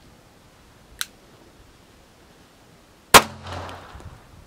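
A single loud 9mm pistol shot about three seconds in, with a short ringing tail. A fainter, thinner sharp crack comes about a second in.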